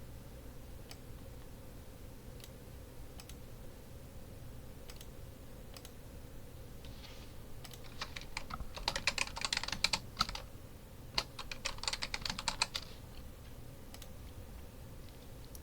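Computer keyboard typing in two quick bursts, about eight and eleven seconds in, with scattered single clicks before and after.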